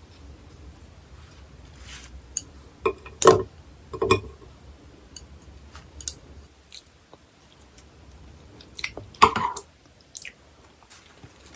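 Close-miked eating: a person chewing sliced raw gizzard shad, with sharp clicks and crunches in irregular clusters, loudest about three seconds in and again about nine seconds in.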